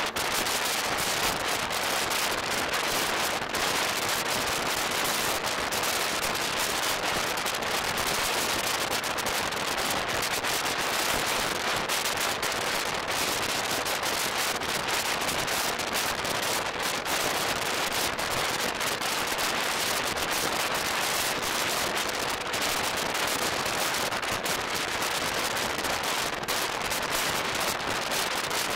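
Steady rushing wind on the open deck of a moving ferry, blowing across the microphone with a fine crackle throughout.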